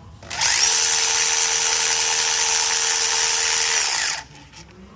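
Cordless power tool running steadily for about four seconds as it backs out an alternator mounting bolt: a motor whine that spins up, holds, and winds down.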